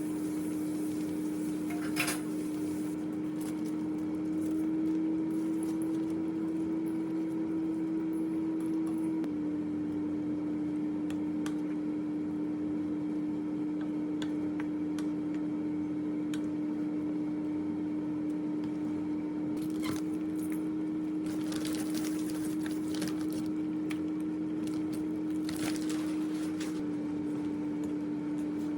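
Steady appliance hum, two low droning tones that shift slightly in pitch a few times, with a few light clicks and knocks over it.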